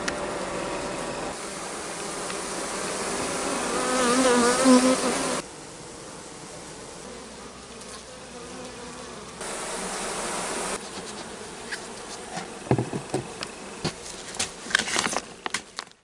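Honeybees buzzing at the hive, a dense hum of the colony with single bees flying close past, loudest about four to five seconds in; the sound changes abruptly a few times. Near the end a few sharp taps sound over the buzzing.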